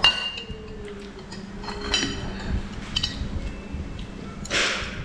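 Chopsticks and tableware clinking against ceramic plates and bowls during a meal: a few sharp clinks with a short ring, and a brief hiss of noise near the end.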